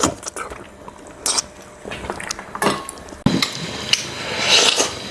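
Mealtime eating sounds over a bowl of pork-backbone soup: utensils clicking against bowls, with biting and chewing. There is a run of scattered light clicks, then a busier, noisier stretch from about three seconds in.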